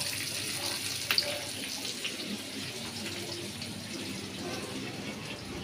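Masala-coated fish frying in hot oil in a pan: a steady sizzling hiss, with one sharp click about a second in.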